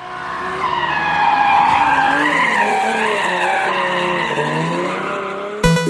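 Sound effect of a car's tyres screeching in a long skid, a wavering squeal that swells in at the start and cuts off suddenly near the end.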